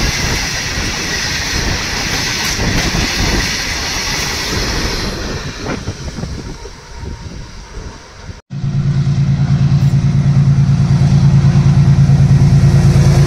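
Freight train passing, its wagons rolling by with a steady rumble and hiss that fades away. After an abrupt cut about eight and a half seconds in comes a locomotive's loud, steady low hum with a regular throb.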